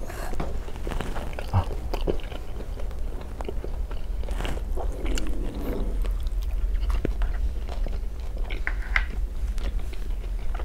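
Close-up mukbang eating of Jollibee fried chicken: biting and chewing, with many short crisp crunches.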